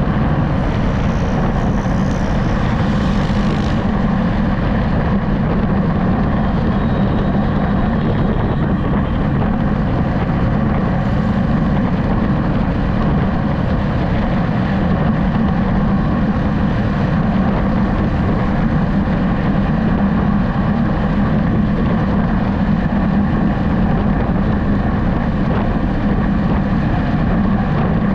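Steady engine hum and road noise of a vehicle cruising on a highway, with wind rushing past. A brief higher hiss sits over it for the first few seconds.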